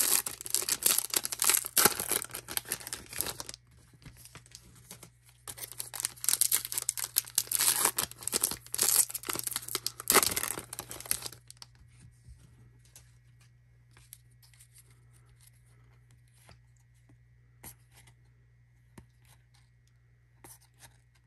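Two baseball card foil packs torn open one after the other, each a few seconds of loud crinkling and tearing of the wrapper. In the second half there are only faint scattered ticks as the cards are handled.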